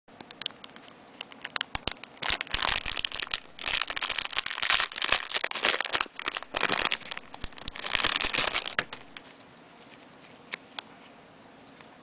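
Clear plastic packaging bag crinkling and rustling in dense bursts as hands open it and pull out a card of magnets, busiest from about two to nine seconds in. Then it goes quiet apart from two light clicks.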